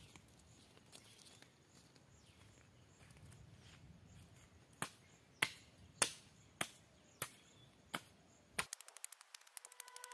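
Short-handled hand hoe chopping into the soil to loosen it. From about halfway through there are seven sharp blows, about one every 0.6 s. Near the end a rapid run of faint ticks follows.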